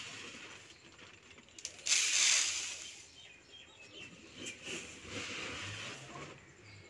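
Woven plastic sack rustling as it is handled, with one brief loud rustle about two seconds in and fainter scattered rustles afterwards.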